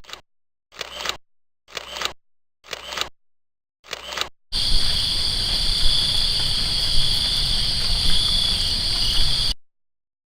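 Sound effects cut together: five short clicking sounds about a second apart, then a steady high chirring for about five seconds that cuts off abruptly.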